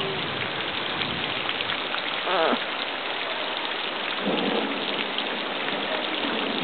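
Heavy rain falling steadily in a downpour. A brief call sweeps down in pitch about two and a half seconds in, and a short pitched sound follows about four and a half seconds in.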